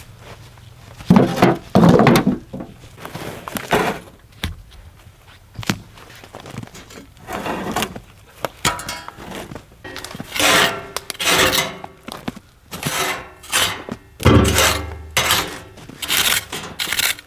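Salvaged bricks clunking and knocking against each other as they are unloaded and stacked, with stretches of scraping and rubbing. A heavier thud comes near the end.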